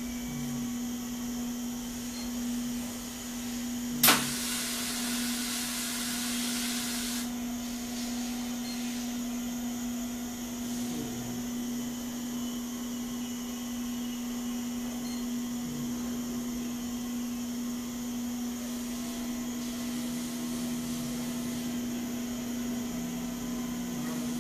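Steady hum of a Carl Zeiss Contourecord 1600G contour measuring machine's drive as its stylus traces a gear profile under CNC control. About four seconds in there is a sharp click, followed by about three seconds of hiss.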